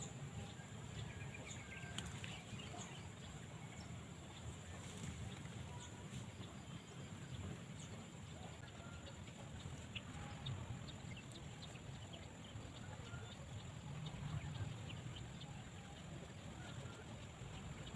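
Faint outdoor field ambience: a steady low rumble and a steady thin high whine, with scattered short chirps and ticks throughout.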